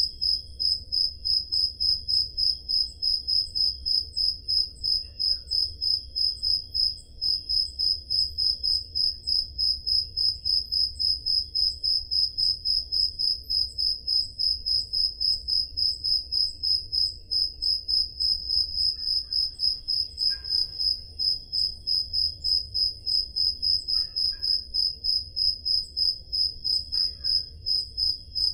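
Crickets chirping in a steady, even rhythm of about three high-pitched chirps a second, over a faint low rumble.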